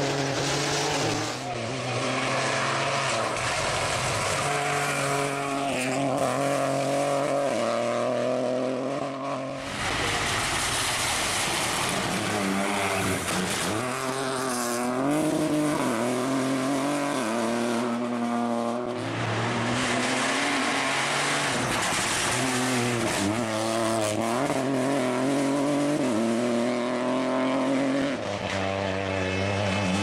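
Peugeot 208 Rally4 rally car's turbocharged three-cylinder engine driven flat out on a special stage, the revs climbing and dropping again and again through gear changes and braking for corners.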